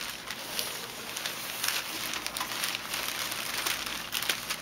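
A plastic bag crinkling and foam packing peanuts rustling and shifting as a bagged item is pulled out of a packed cardboard box. The crackling is continuous and irregular.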